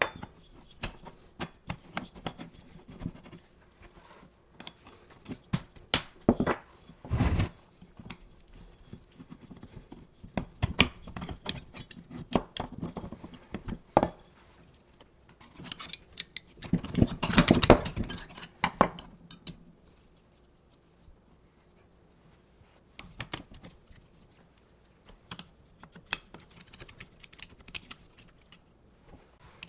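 Metal parts and hand tools being handled on a workbench: scattered clinks, taps and knocks, with a louder, denser stretch of clattering for about two seconds past the middle.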